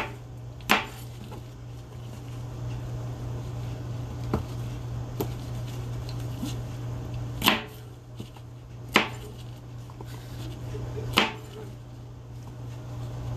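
Chef's knife chopping through produce onto a plastic cutting board: single sharp knocks at uneven intervals, some close together and some several seconds apart, with a few lighter taps between. A steady low hum runs underneath.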